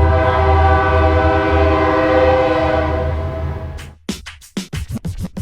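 Train horn held in one long steady blast, a chord of several tones over the low rumble of the passing train. It stops abruptly about four seconds in, and music with a sharp, punchy beat takes over.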